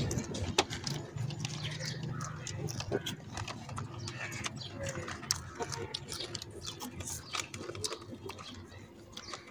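Close-up chewing of a raw yardlong bean: a run of small, irregular crisp crunches and clicks as it is bitten and chewed.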